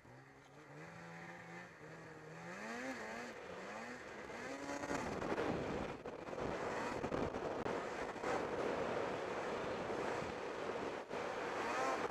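Snowmobile engine during break-in, accelerating from low revs with its pitch climbing in steps over the first five seconds, then running hard at speed with track and snow noise.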